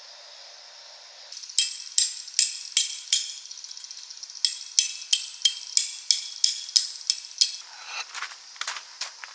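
A utensil clinking against a dish in a quick run of sharp, ringing taps, about three a second, then a few duller knocks near the end.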